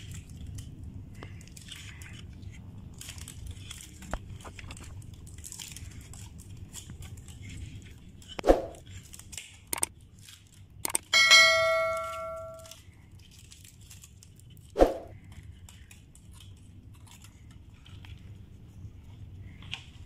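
Handling noise of a plastic fire alarm pull station and its wiring, with small clicks and two sharp knocks, one about eight seconds in and one near fifteen seconds. Midway, a couple of clicks are followed by a bell chime, the sound effect of a subscribe-button animation, ringing out for about a second and a half.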